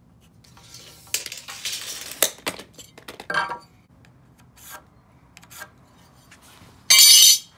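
A carpenter's pencil scratches marks across a pine 2x4 against a tape measure and a metal speed square, with light clinks as the square is handled on the board. Near the end comes one loud, short metallic rattle and scrape.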